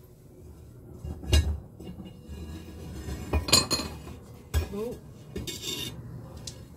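Ceramic kiln shelf and kiln props being lifted out of the kiln: a few scattered clinks and knocks, the sharpest about a second and a half in and again about three and a half seconds in.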